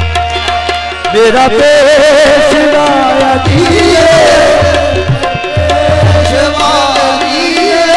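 Live qawwali music: tabla playing under a singer's voice that bends and wavers through long held notes, over steady sustained harmonium tones.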